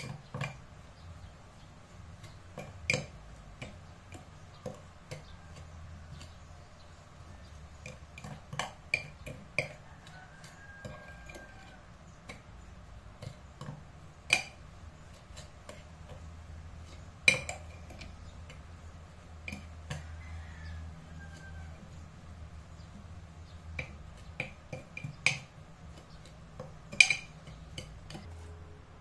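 Metal spoon stirring a crumbly cinnamon-sugar filling in a ceramic baking dish: soft scraping with sharp clinks of the spoon against the dish every few seconds, over a low steady hum.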